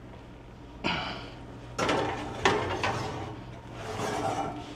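Glass casserole dish set down on a metal wall-oven rack and the rack slid in: a few knocks, then metal scraping and rattling.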